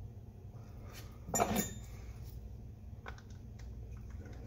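Small metal parts and hand tools clinking and clicking while a toggle switch is fitted onto a metal mounting plate and tightened with pliers, with one louder metallic clatter about a second and a half in.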